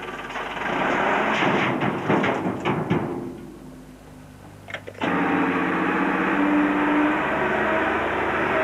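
Wheel loader working as it tips a bucketful of earth and roots into a tipper truck's body, with a run of knocks and clatter that then dies down. About five seconds in the sound cuts suddenly to a steady engine drone with a low hum.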